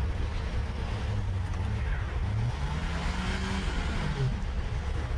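A motor vehicle's engine running with a low rumble, its pitch rising and falling a few times.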